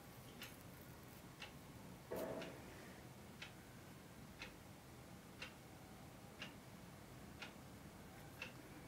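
Clock ticking about once a second in a quiet room, with one brief louder scrape about two seconds in.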